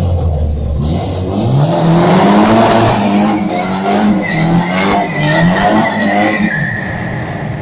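Nissan S14 coupe doing a burnout: the engine revs up and down again and again while the rear tyres spin, with a high tyre squeal from about four seconds in. The sound echoes inside a multi-storey car park.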